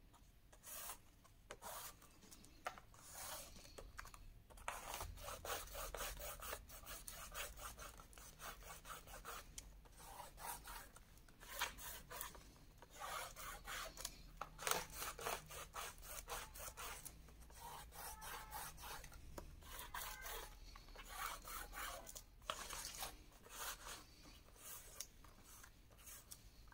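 Faint rubbing as hands press and smooth a freshly glued card frame down onto a box lid, skin sliding over paper and acetate. The rubbing comes in many short, quick strokes.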